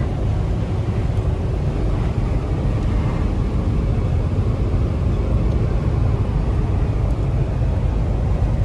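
Steady low rumble of a Suzuki S-Presso cruising at speed, heard from inside the cabin: engine and tyre noise.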